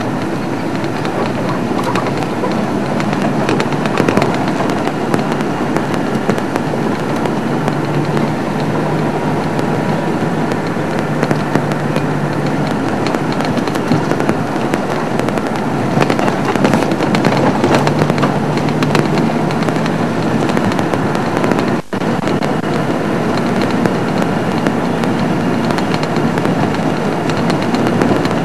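A game-drive vehicle driving along a rough dirt bush track: a continuous dense crackling rattle and noise, with a low engine drone that comes and goes. The sound drops out for an instant about three-quarters of the way through.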